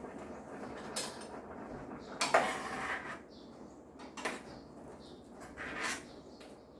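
Metal kitchen utensils clinking and scraping against cookware, in four separate bouts, the longest with a faint ringing, the sound of congee being stirred or served.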